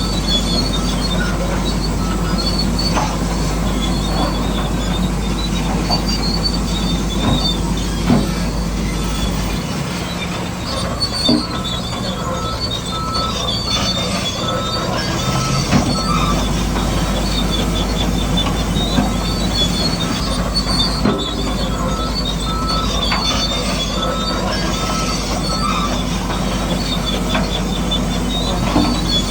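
Small electric motors and gearboxes of RC construction models running steadily, a whining squeal over a constant low hum, with a few sharp knocks and two stretches of short repeated beeps.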